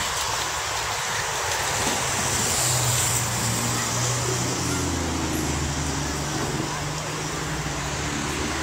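Street traffic noise with a steady low engine hum from a motor vehicle, which comes in about two and a half seconds in and fades near the end.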